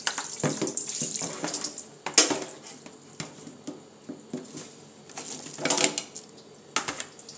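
Kitchen tap running into a sink over fish in a plastic basket, with a fork clinking and scraping as the fish are scaled. A sharp clatter about two seconds in is the loudest, and more clatters come near the end.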